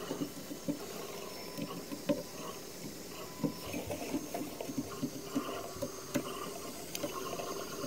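Scattered light clicks and scrapes of hand assembly work: a stepper motor's M3 mounting bolts being given their final tightening by hand rather than with the drill.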